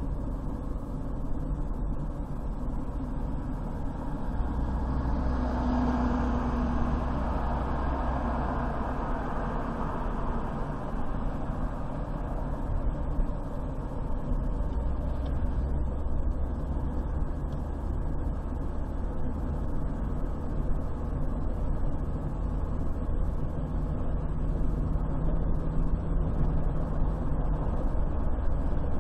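Steady road and engine noise of a car driving along a highway, a low rumble under tyre hiss, with a louder swell about five to nine seconds in.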